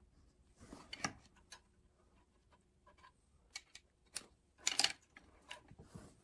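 Scattered light metallic clicks and clinks from the camshaft sprocket and timing chain of a Yamaha 1.8L engine's cylinder head being handled and turned to line up the cam timing marks; the loudest click comes near the end.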